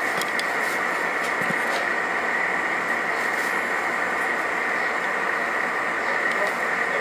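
Steady, even background noise, a constant hiss with a higher-pitched edge, with a few faint clicks.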